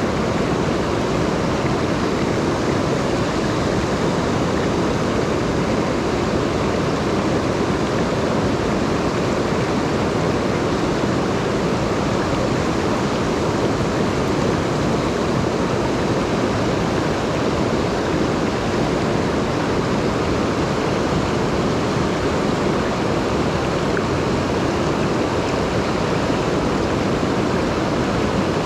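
Mountain stream running high after rain, its rushing water a steady, even noise with no breaks.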